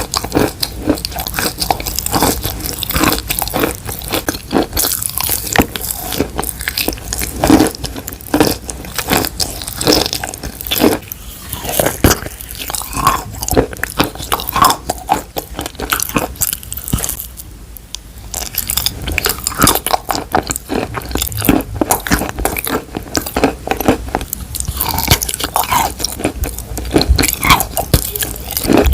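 Close-miked ASMR biting and chewing: wet, crunchy crackles and clicks in a dense, uneven stream, with a brief lull a little past halfway.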